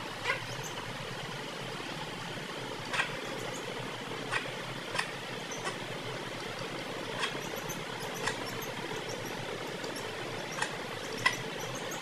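A hen and chicks' beaks tapping on a hard stone floor as they peck up scattered grain: irregular sharp taps, about one every second, over a steady background hiss.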